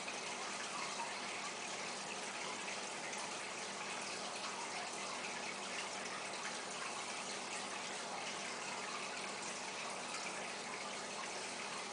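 Aquarium water circulating: a steady splashing hiss of water moving at the tank's surface, even and unbroken throughout.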